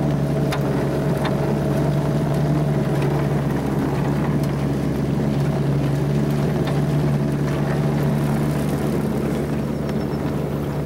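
Johnson 9.5 hp two-stroke outboard motor running at a steady throttle, pushing a small aluminium boat under way.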